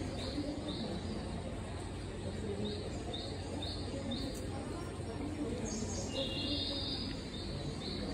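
Short, high, rising chirps, about two a second, in two runs, with a longer steady high tone about six seconds in, over a low murmur of background voices.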